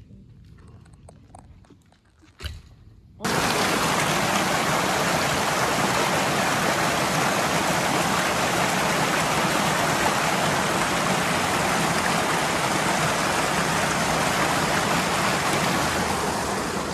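Steady rushing of running water, starting suddenly about three seconds in after a few faint clicks.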